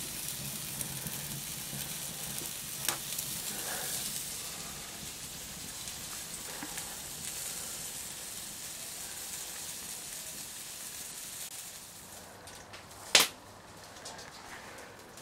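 Sausages sizzling over a wood fire on a mesh grill: a steady hiss with small crackles, which drops away about three-quarters of the way through. Near the end there is a single sharp knock, the loudest sound.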